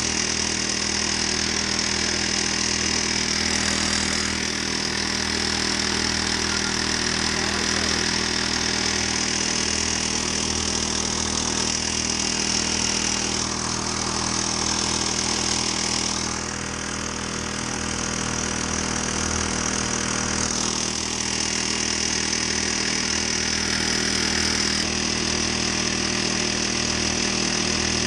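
Honda GX35 four-stroke single-cylinder engine of a kayak outboard motor, running steadily, with a brief dip in level about two-thirds of the way through.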